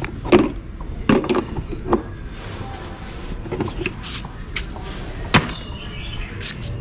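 Metal clanks and clicks of slip-joint pliers on the brass pipe fitting and steel shell of a solar water heater tank: a handful of sharp knocks spread over several seconds, the loudest just after the start and about five seconds in.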